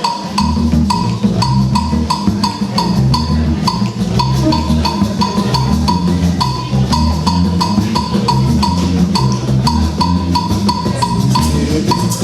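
Percussion-driven instrumental beat: a steady drum pattern with deep bass strokes, sharp clicking hits and a short high tone repeated on the beat.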